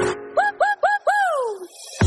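Background electronic music in a break: the beat drops out and a pitched tone swoops upward four times in quick succession, the last one then sliding slowly down in pitch.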